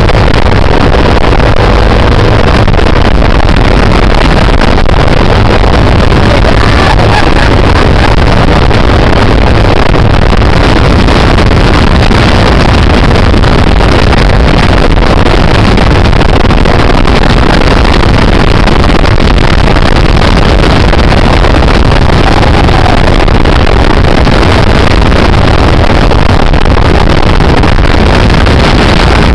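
Helicopter rotor and engine noise heard from inside the cabin during flight, loud and steady throughout, with wind buffeting the microphone. It is loud enough to run the recording close to full scale.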